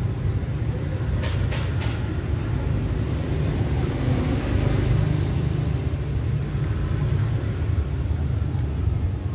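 Steady low rumble of street traffic, with three quick clicks of utensils against the bowl a little over a second in.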